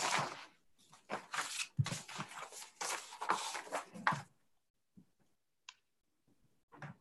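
Irregular rustling and scraping handling noise for about four seconds, then near quiet broken by a few faint clicks.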